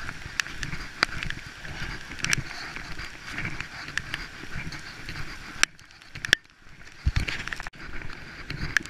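Heavy rain pouring down, heard close on a chest-worn camera, with scattered sharp taps and a walker's footsteps on wet pavement.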